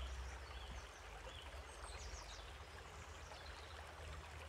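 Faint outdoor background: a steady low hum and hiss, with a few short, distant bird chirps in the first half.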